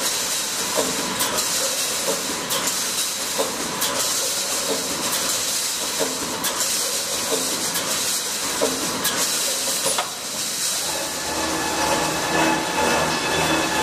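Automatic wire mesh welding machine at work: a steady hiss and crackle of resistance-welding sparks, with a sharp clack about once a second as the welding head cycles. About ten seconds in the welding stops and a machine hum with steady tones takes over.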